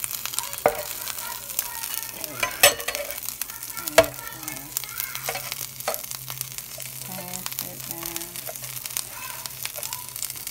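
Butter sizzling steadily under a flour-tortilla quesadilla frying in a pan, with a metal spatula scraping and knocking against the pan a few times, loudest about two and a half and four seconds in.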